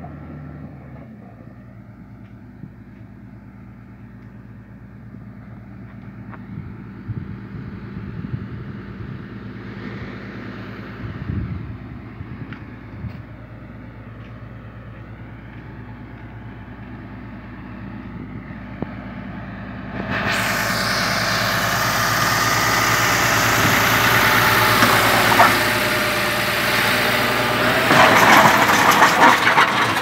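Motor grader's diesel engine running steadily with a low, even hum. About twenty seconds in, a loud rushing noise comes in suddenly over it and stays.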